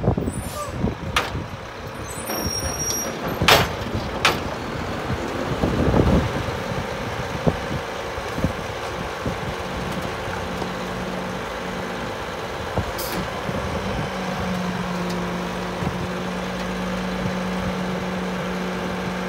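Mack LEU garbage truck pulling up and stopping, with short sharp hisses from its air brakes. From about halfway the engine holds a steady hum with a higher note over it while the Kann Co-Collector's front cart bin is worked by the hydraulics.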